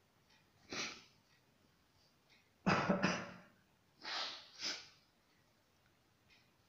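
A person coughing in short bursts: one cough about a second in, a louder double cough near the middle, then two softer coughs or breaths close together.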